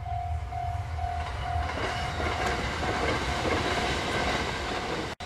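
A 681 series limited-express electric train passing at speed, its wheel-on-rail noise swelling over a low rumble and then cutting off suddenly near the end. Throughout, a level-crossing bell rings at an even beat of about twice a second.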